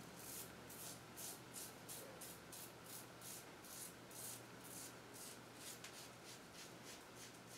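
Merkur 34C double-edge safety razor with an Astra SP blade scraping through lathered neck stubble across the grain, in short, quick, faint strokes about three a second.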